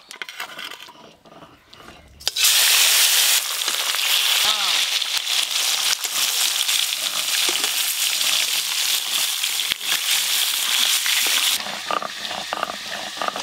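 Pieces of turmeric-and-salt-rubbed fish slid into hot mustard oil in a steel wok, bursting into a loud sizzle about two seconds in that keeps frying steadily and eases near the end.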